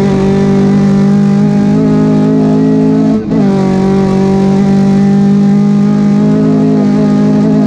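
Two-wheel-drive rally car engine held at high revs under full throttle, heard from inside the cabin, with one brief dip in the engine note about three seconds in before it pulls hard again.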